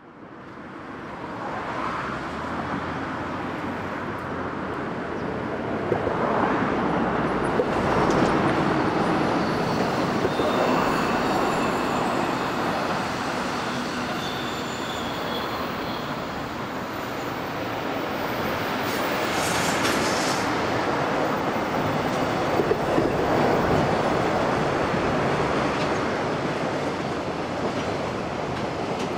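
Freight train of container wagons passing on the track: a steady roll of wheels on rail that swells and eases as the train goes by, with thin high wheel squeals now and then.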